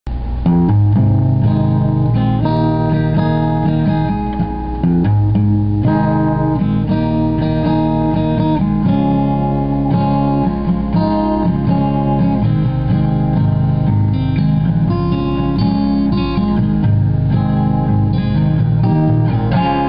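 Guitar being played solo, chords picked and strummed at a steady pace with no singing.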